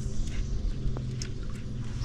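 A motor running with a steady low hum, with a few faint clicks over it.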